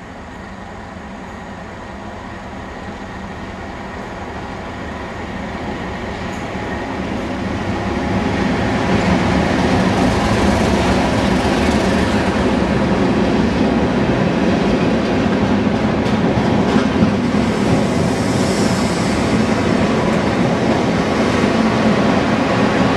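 Class 31 diesel locomotive with its English Electric V12 engine hauling a test train through a station: engine and wheel noise grows louder over the first eight or nine seconds as it approaches, then stays loud as the locomotive and its coaches run past.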